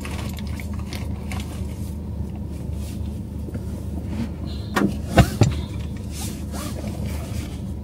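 Steady low hum inside a stationary car's cabin, with soft rustling and small knocks as someone handles things and shifts in the seat; a few sharp knocks come close together about five seconds in.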